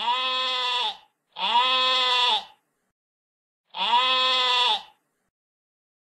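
Sheep bleating three times, each call about a second long, the first two close together and the third after a longer pause.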